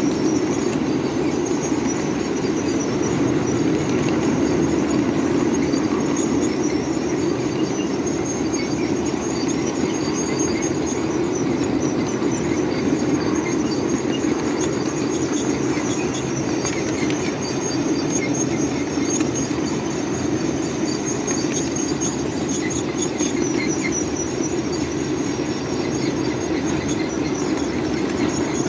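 Brakes squealing on a ride-on scale live-steam train as it descends a grade: a high, wavering squeal that comes and goes over the steady rumble of the wheels on the rails.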